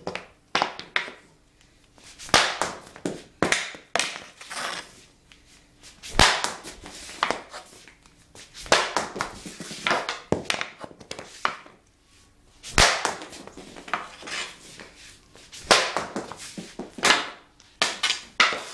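Hockey shots with an Easton EQ40 stick against a poured-concrete basement wall, taken one after another: sharp cracks of the stick and puck, one or two a second, each followed by a short echoing rattle off the concrete.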